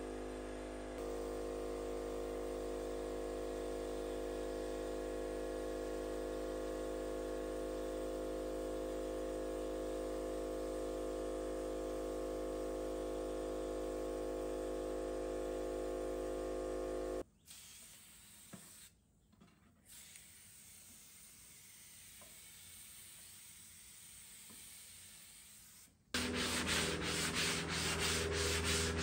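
A siphon-feed spray gun hissing with a steady hum as it sprays oil-based polyurethane, cutting off abruptly about 17 seconds in. After a quiet stretch, a sanding sponge rubs back and forth over the wood in quick, even strokes near the end, sanding down the spotty topcoat.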